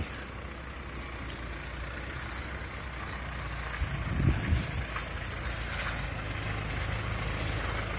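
Toyota Land Cruiser 150 creeping round a turn with its centre diff unlocked: the engine runs steadily under light load, with a few low thuds about four seconds in. There is very little transmission windup, if any at all, so nothing binds or skips.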